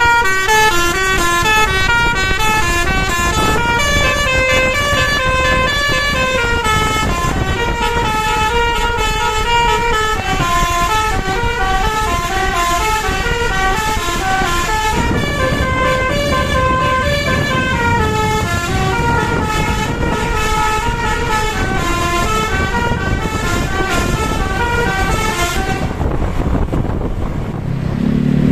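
Bus telolet basuri musical air horn playing a long tune of stepped notes, several horn tones sounding together, over the low rumble of the bus's engine. The tune breaks off near the end, leaving only the engine.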